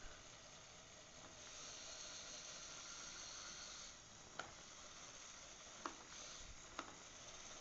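Faint steady whir of the LEGO drop-tower model's small electric motors driving the gondola, louder for a couple of seconds while it climbs. This is followed by three sharp plastic clicks a second or so apart as the gondola comes back down.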